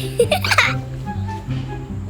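Background music with a steady, repeating bass line, with a brief burst of high laughter in the first second.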